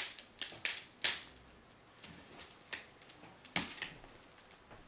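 Plastic wrapping on a toy surprise egg crackling and crinkling in uneven sharp clicks as fingers pick at it and try to tear it open; the wrap is not giving way.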